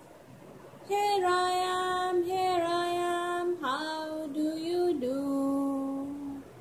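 A woman singing a slow children's colour song in long held notes, starting about a second in.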